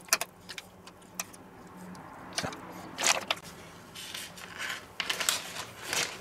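A metal spoon scraping and clicking in a stainless steel bowl of paprika paste, then a plastic freezer bag crinkling as a marinated pork steak is slid into it. The sound is a run of light, scattered clicks and rustles.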